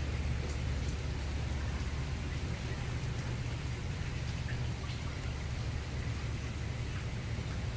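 Steady rain falling, with a few scattered drips ticking, over a steady low rumble.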